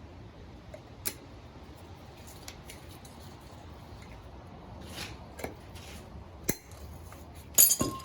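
Metal parts of a wheel hub assembly clicking and clinking as a part is worked back into place, ending in a loud metallic clank near the end as it pops into its seat.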